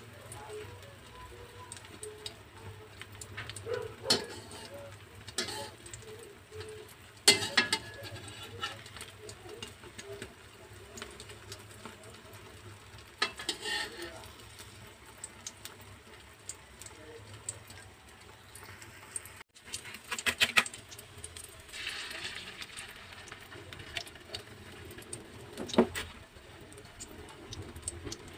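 Slotted metal spatula scraping and knocking against a nonstick frying pan now and then while an egg omelette is rolled, over the faint sizzle of eggs frying in oil.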